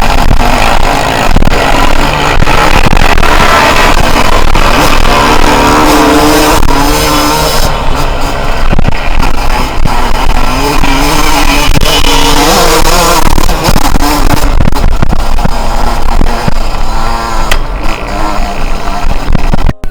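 Yamaha YZ125's single-cylinder two-stroke engine revving, its pitch rising and falling over and over as the bike is ridden hard, with music mixed over it. The sound cuts out briefly just before the end.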